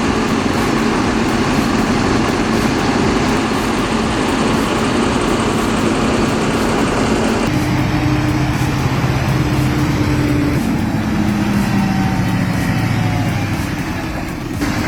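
Heavy vehicle engines running: a dense, loud engine noise that switches abruptly about halfway through to a steadier engine hum, with a tone falling in pitch near the end.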